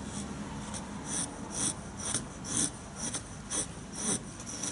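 Knife blade shaving strips off a wooden stick to make a feather stick, a series of short scraping strokes about two a second.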